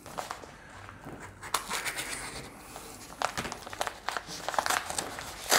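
Packaging being handled and torn open by hand: crinkling and rustling with scattered sharp clicks.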